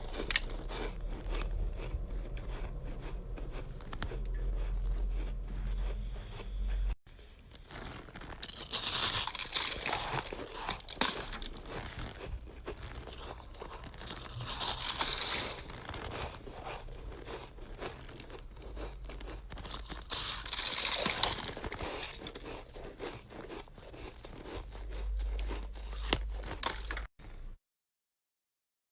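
Chest-freezer frost ice being bitten and chewed: several loud crunchy bites with quieter crunching between them. It stops abruptly near the end.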